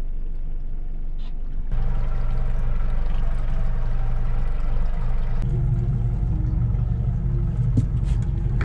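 Outboard motor running steadily while the boat trolls, a low drone that steps louder about two seconds in and again about five seconds in, with a few light clicks near the end.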